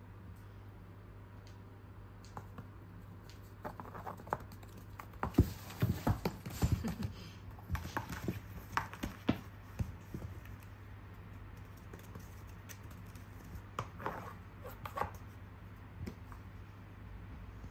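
A cat playing among cardboard scratcher bowls on a wooden floor: scattered taps, thumps and scratches from its paws and claws, busiest in the middle, with a few more near the end. A steady low hum runs underneath.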